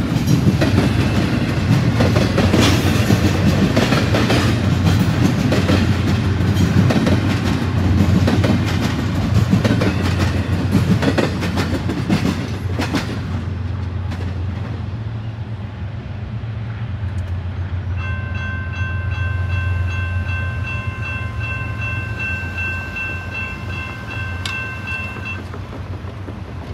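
Double-stack intermodal freight train passing at a grade crossing, its wheels clattering over the rail joints with a heavy low rumble. About halfway through the clatter drops away to a quieter rumble. Near the end a steady high tone sounds for several seconds.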